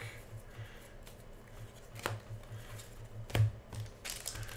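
Quiet handling of trading cards: a stack being sorted and slid through the fingers, with two sharp taps about two and three and a half seconds in. Near the end a foil card-pack wrapper starts crinkling as it is picked up.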